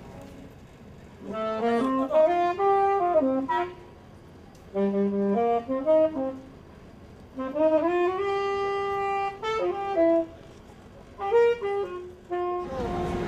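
Solo saxophone playing jazz phrases, four of them with short gaps between, sliding up into and down out of its notes. A steady rushing noise comes in at the very end.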